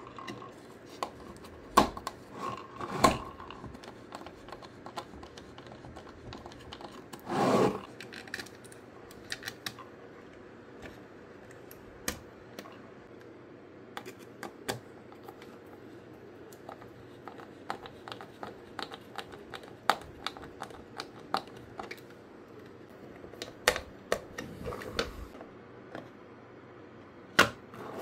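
Scattered small clicks and taps of plastic and metal as a small hand screwdriver drives screws into a 3D-printed plastic speaker case and the parts are handled, with a short scrape about a quarter of the way in and another near the end.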